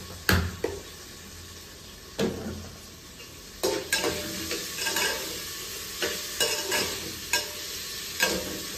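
Spoon stirring and scraping inside an aluminium pressure cooker, knocking against its sides in irregular strokes, over the steady sizzle of food frying in hot oil.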